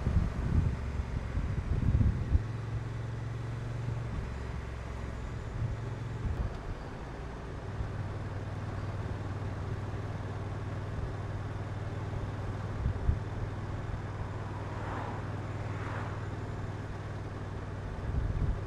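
Honda NT1100's parallel-twin engine running on the move under a steady rush of noise. It is louder and uneven for the first couple of seconds, its note shifts a couple of times, and then it settles into a steady drone.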